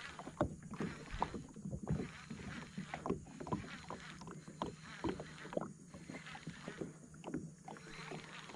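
Irregular short clicks and knocks, a few a second, from a fishing reel being cranked and tackle handled in a kayak while a hooked peacock bass is reeled in.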